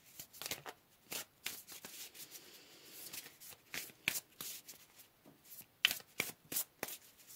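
A deck of oracle cards being shuffled by hand: quick, irregular clicks and slaps of card against card.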